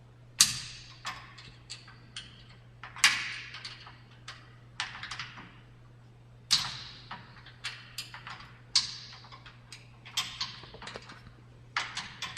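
Sharp metallic clicks and clinks from a hand tool loosening the Allen bolts that set the drive-chain tension on a StairMaster StepMill. A loud click comes every two to three seconds, with lighter ticks between.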